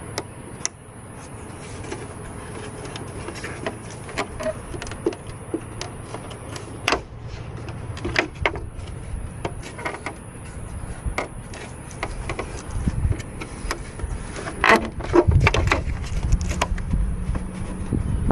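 Scattered clicks and knocks of hard plastic being handled: the tail light assembly of a 2015 Ram 1500 and its wiring harness connectors being worked loose, with a cluster of sharper clicks near the end. A low rumble comes up in the second half.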